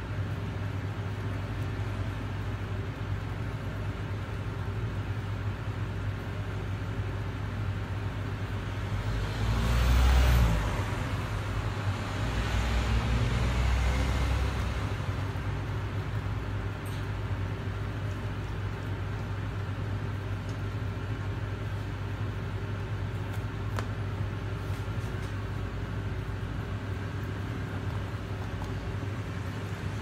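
Steady low machine hum, with a louder rushing swell about ten seconds in and a second, lower one from about twelve to fifteen seconds.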